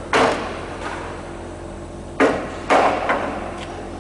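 Hammer blows on a steel punch held against a riveted aluminium Lancaster wing rib, working to free a stuck bolt. There are three sharp metallic strikes, one just after the start and two close together about two seconds in, with a few lighter taps between them.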